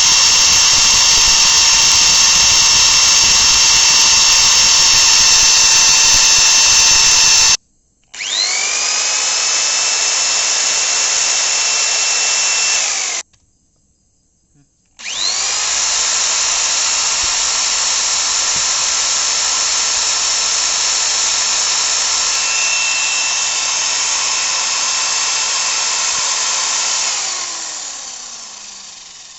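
Electric drill motor running with a steady high whine. It cuts off, spins back up with a rising whine, stops again and restarts, then winds down with a falling whine near the end.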